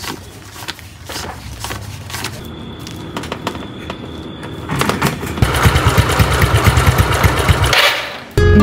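Small motorcycle: a few clicks and handling noises, then about five seconds in its engine runs loudly with a fast low pulsing. The engine sound stops abruptly just before the end.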